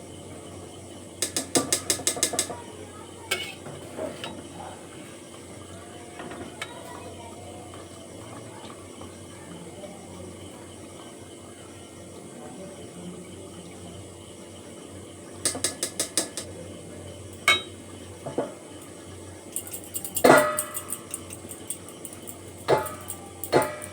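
Kitchen pots and metal utensils: two short runs of rapid clicking, and several sharp metal knocks and clatter in the last few seconds, over a low steady hum.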